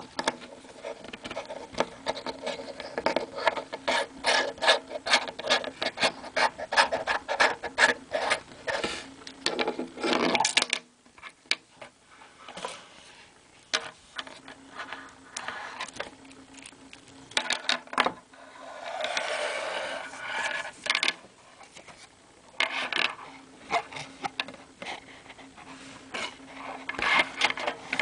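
Small plastic Bakugan toys being handled close to the microphone: rapid clicking and rubbing as the pieces are turned and opened, dense for about the first ten seconds. After that come sparser clicks, a short rustle and a few more clicks near the end.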